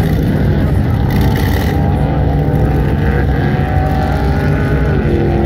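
Ultra4 4400-class race car's engine running hard over the course, its pitch rising and falling as it revs, then steadying near the end.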